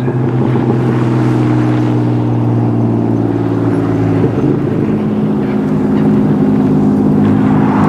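Pickup truck engine running steadily as the truck climbs the road, its engine note changing about four seconds in.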